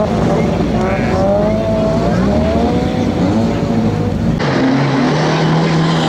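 Rally car engine revving hard on a gravel course, its pitch climbing and dropping again and again through gear changes. About four seconds in, the sound cuts abruptly to a steadier, lower engine note that rises slightly near the end.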